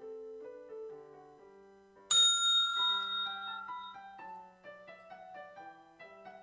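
Soft piano music playing, with a single loud bell ding about two seconds in that rings out and fades over a couple of seconds. The bell is the 30-second cue telling exam candidates to move on to the next station.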